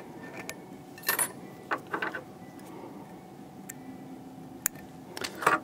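Small metal clicks and ticks from a fly-tying whip-finish tool and fingers working thread at the hook eye, in a few sharp clusters: about a second in, around two seconds, and again near the end.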